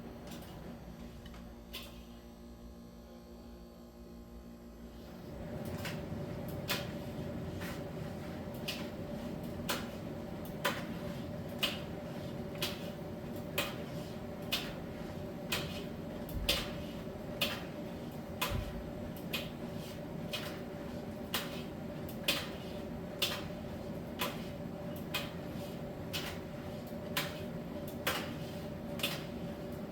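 Miele T1 heat-pump tumble dryer humming, then its drum starts turning about five seconds in: a steady running noise with a light click about once a second as the load tumbles.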